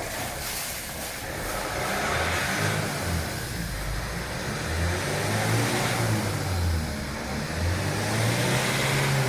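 Tata Safari SUV driving, with engine and road noise; the low engine note rises and falls as it runs.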